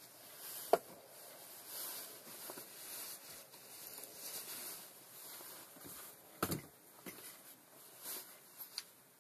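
Rustling and handling of tools and parts at a workshop bench, with one sharp knock a little under a second in and a few lighter knocks and clicks in the last three seconds.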